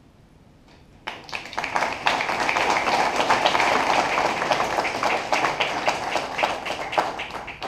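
Theatre audience applauding at the end of a stage play, many hands clapping, breaking out suddenly about a second in after a hushed room.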